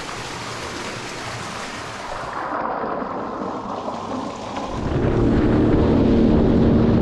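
A steady rush of water for the first few seconds, then, from about two-thirds of the way in, a Sea-Doo jet ski engine running steadily at speed, with a steady drone over a low rumble.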